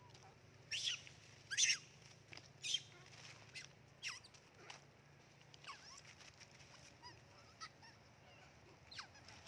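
Long-tailed macaques giving short, high squealing cries, each falling sharply in pitch. About nine calls come at irregular intervals; the loudest are in the first four seconds and later ones are fainter.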